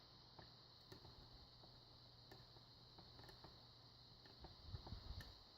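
Faint, scattered clicks of a short hook pick probing the pins of a pin-tumbler lock cylinder under light tension, with the core in a slight false set, plus a few soft handling bumps near the end.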